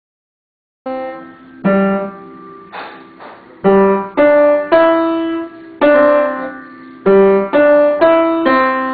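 Piano playing a slow melody, starting about a second in: single notes and chords struck at an unhurried, uneven pace, each left to ring and fade.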